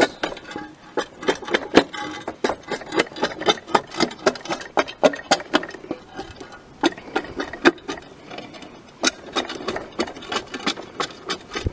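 Hand-tool work on a roof: many quick, irregular clicks and taps, several a second, as the roofer cuts and fits material.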